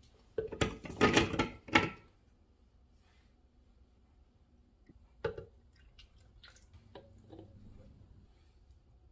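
Ingredients being tipped and spooned into an empty plastic Ninja blender pitcher: a few loud clattering knocks in the first two seconds as strawberry pieces drop in, then one sharp tap about five seconds in and faint light taps and soft pouring sounds.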